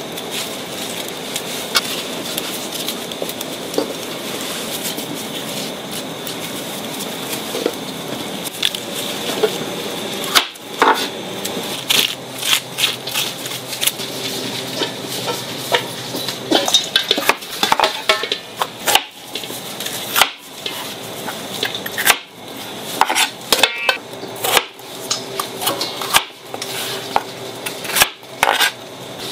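Kitchen clatter of a knife, cutting board and dishes as fruit is cut and handled, with a steady background hum. About ten seconds in, the clatter turns into frequent, irregular sharp knocks.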